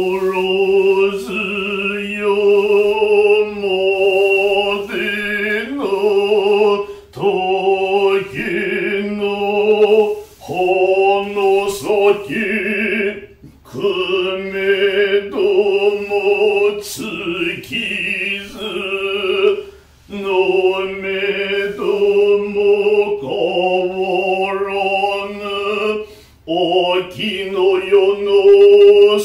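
Noh chanting (utai) accompanying a shimai dance: a male voice chants slow, long-held notes in phrases a few seconds long, with short breaks between them.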